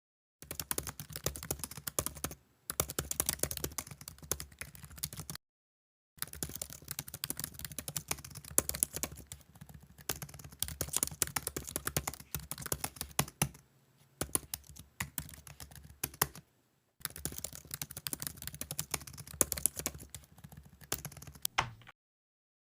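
Rapid, irregular keyboard typing in five runs separated by short pauses.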